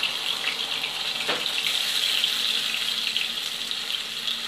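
Masala-coated sardines frying in hot oil in a pan: a steady, high sizzle of bubbling oil with an occasional small crackle.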